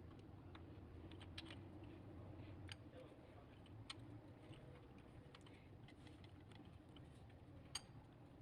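Near silence: a faint low hum with a few scattered light clicks.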